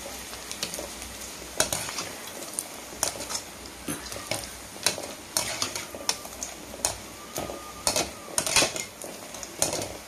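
Rice-flour murukku vathal deep-frying in hot oil with a steady sizzle. A metal spoon and wire spider stir and turn them, giving frequent sharp clinks and scrapes against the pan.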